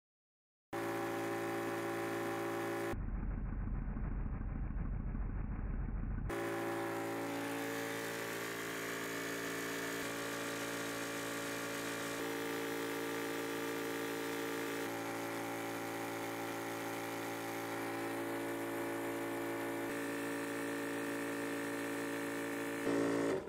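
Yong Heng 4,500 psi high-pressure PCP air compressor running steadily with an even motor-and-pump hum while filling an air tank. It cuts in after a moment's silence, sounds deeper and muffled for a few seconds early on, and stops abruptly near the end.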